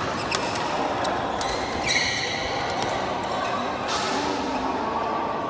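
Badminton rally: a few sharp hits of rackets on the shuttlecock in the first second and a half, then a brief high squeak of a shoe on the court floor about two seconds in, over the steady background noise of a busy hall.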